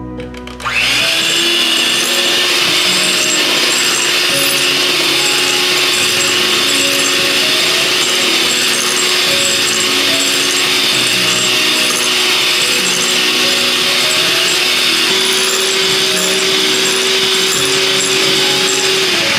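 Electric hand mixer running steadily as its beaters whip egg whites and sugar into stiff meringue. It starts about a second in, its pitch rises slightly near the end, and it cuts off at the end.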